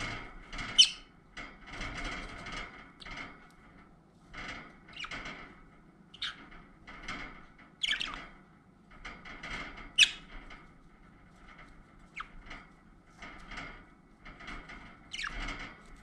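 Budgerigars chattering, with sharp, high-pitched squeaky calls every few seconds. The loudest come about a second in and about ten seconds in.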